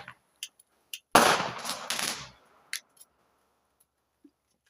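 Small firecrackers going off: a few single sharp pops, then a rapid cluster of bangs about a second in that lasts about a second, and two more pops after it.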